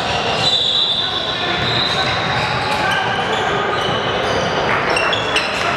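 Game sounds of indoor basketball on a hardwood floor: the ball bouncing and sneakers squeaking in short high chirps, with voices echoing around the large gym.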